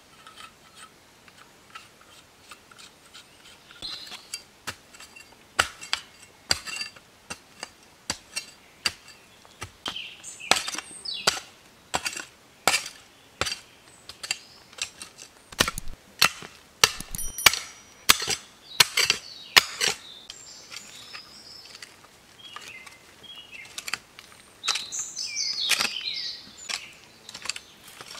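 Short-handled mattock striking into forest soil, a long series of sharp digging strikes about one a second, with birds chirping in the background.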